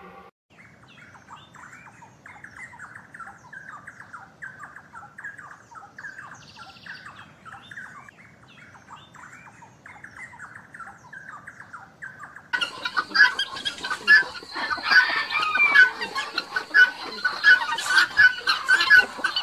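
Birds calling: a quick run of short chirps, then about two-thirds of the way through a sudden switch to a louder, denser chorus of many birds.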